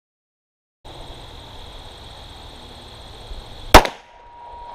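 A single 9mm pistol shot from a Glock 19 about three and a half seconds in, sharp and loud, firing a handloaded 125-grain polymer-coated bullet. Before it, faint outdoor background with a steady high-pitched tone comes in after a second of silence.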